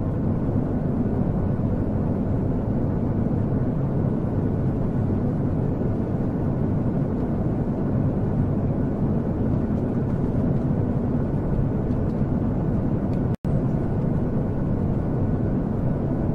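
Steady low rumbling noise without clear tones, cut off for an instant about 13 seconds in.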